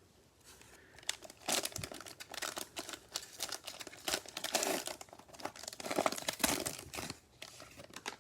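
Crinkly cellophane wrapper of a football card cello pack being torn open and crumpled by hand: irregular crackling and rustling that starts about half a second in and goes on for some seven seconds.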